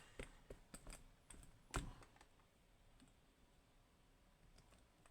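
A few faint clicks and taps of small lock parts being handled, the loudest a little under two seconds in, then near silence.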